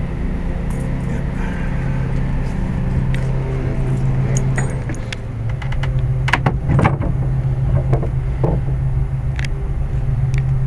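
A steady low mechanical hum, like a motor or engine running, with scattered metallic clinks and taps, the loudest cluster about six to seven seconds in.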